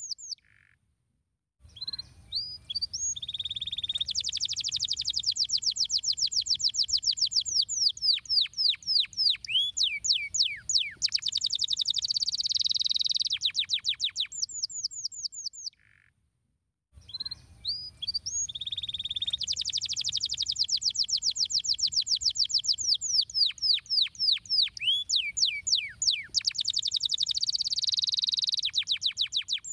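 Domestic canary singing a long song of rapid trills and rolling runs of high sweeping notes, one phrase running straight into the next. There is a short pause about a second in and another around the middle, and the same song passage plays twice.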